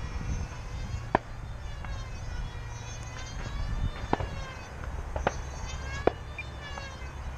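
Electric motor and propeller of an E-flite P-51D Mustang RC plane flying overhead: a thin, buzzing whine whose pitch slowly rises and falls. A handful of sharp clicks stand out over it.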